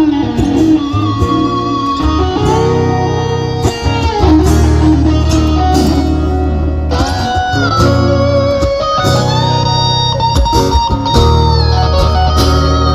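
Rock ballad music with an electric guitar solo: long held lead notes that bend up and down in pitch over a steady bass line and drums.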